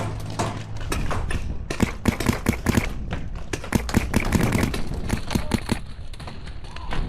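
Paintball markers firing a rapid string of shots, starting about two seconds in and running for about four seconds, with wind rumbling on the microphone.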